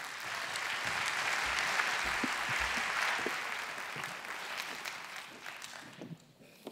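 Audience applauding, building over the first second and dying away near the end.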